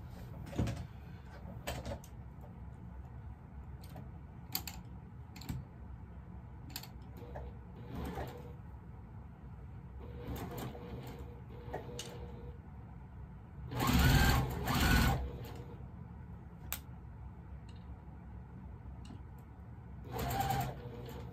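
Electric sewing machine stitching in short runs: two loud bursts about two-thirds of the way through and another near the end, seaming pinned quilt pieces together. A few light clicks come earlier.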